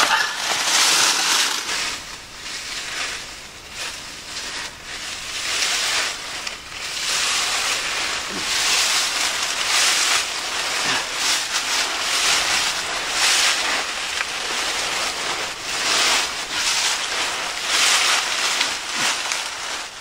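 Dry fallen leaves crunching and rustling in irregular bursts as a person crawls on hands and knees through a leaf-filled stone culvert.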